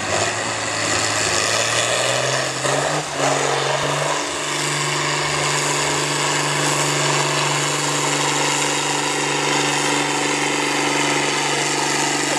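John Deere farm tractor's diesel engine pulling a weight-transfer sled at full throttle: its note climbs over the first few seconds as it takes the load, then holds steady.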